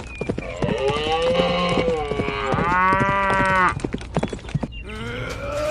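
A cow mooing: two long calls of about a second each, with a third starting near the end, over a rapid run of light clicks.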